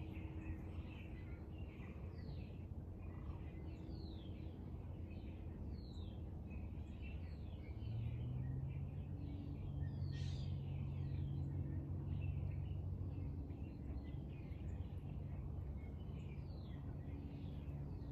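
Many small birds chirping in quick, short downward-sweeping notes throughout, over a steady low hum that grows louder about eight seconds in.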